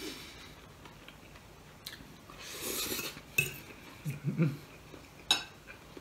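A metal fork scraping and clinking on a plate of noodles, with a couple of sharp clinks in the second half.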